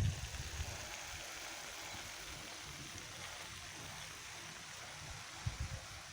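Steady hiss with brief low rumbles of wind buffeting the microphone near the start and again about five and a half seconds in.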